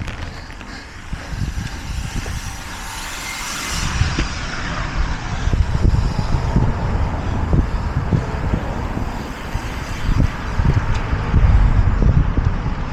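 A motor vehicle passing close, its hiss swelling and then dropping away about four seconds in, followed by a loud, uneven low rumble with scattered thumps.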